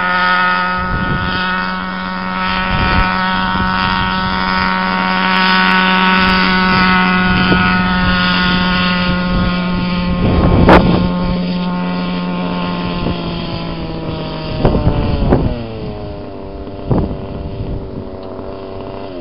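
Radio-controlled scale Huey model helicopter running at a steady pitch as it comes down and lands, then spooling down, its pitch falling from about three-quarters of the way through. Gusts of wind buffet the microphone several times, loudest about halfway.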